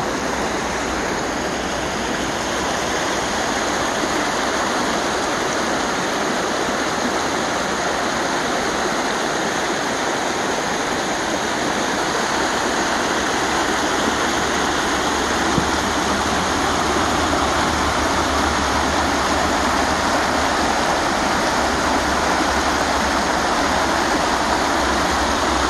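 Small creek rushing and splashing over rocks in a steady cascade of white water.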